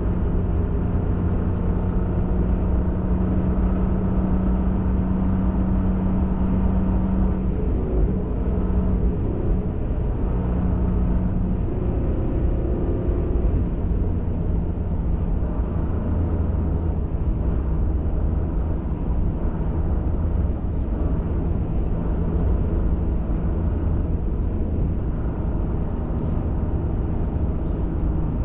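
Pickup truck driving on a trail, heard from inside the cab: a steady low engine and tyre drone, with a steady hum in it for about the first twelve seconds.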